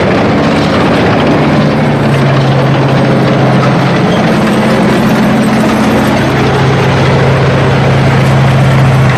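Main battle tank driving past at close range: a loud, steady engine drone with a low hum under the running noise of the vehicle.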